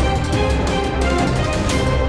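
Soundtrack music with a steady drum beat over sustained tones.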